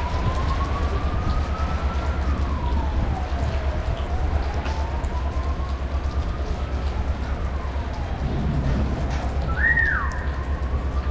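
A siren-like wail that slowly rises and then falls back, about three times, over a steady low rumble, with a short high chirp near the end.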